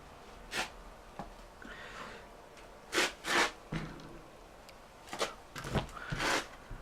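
Workshop handling noises: a handful of brief knocks, scrapes and rustles as the tyre and tools are moved about, the clearest pair about three seconds in and a cluster near the end.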